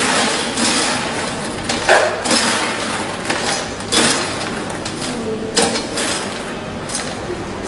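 Dry popped ball-shaped popcorn rustling and scraping as a metal scoop digs it out of a perforated stainless-steel tray and tips it into a paper cup. There are several louder scooping bursts, about two seconds apart.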